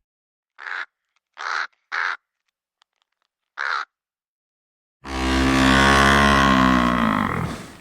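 Four short, harsh bird calls in the first four seconds. About five seconds in, a long, loud, low-pitched animal call starts abruptly, lasts nearly three seconds and falls slightly in pitch as it fades.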